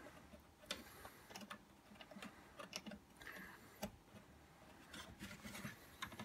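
Faint, scattered clicks and light taps from fingers handling a boombox's circuit board and plastic chassis during reassembly.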